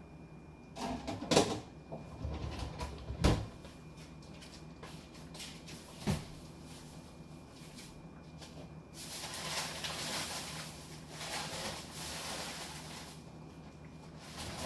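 Kitchen cupboard doors and cookware knocking and clattering as someone rummages for a pot lid, with three sharp knocks in the first six seconds, then a few seconds of steady rustling noise.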